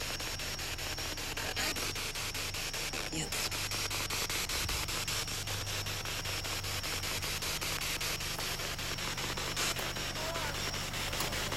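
SB7 spirit box sweeping through radio stations: a steady hiss of static chopped into rapid, even pulses, several a second.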